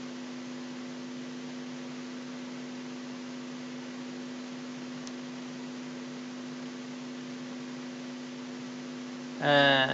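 Steady electrical hum with hiss from the recording setup: a low buzzing tone made of several fixed pitches, unchanging in level.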